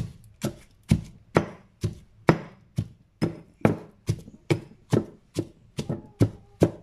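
Stone pestle pounding whole garlic cloves in a stone mortar, steady knocks about two a second, bruising the cloves to loosen their skins for easy peeling.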